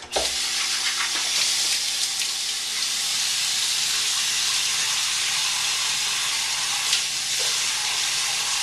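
Bathroom sink faucet running, turned on abruptly and then pouring steadily, while cupped hands splash water over a freshly shaved head to rinse off the shave lotion.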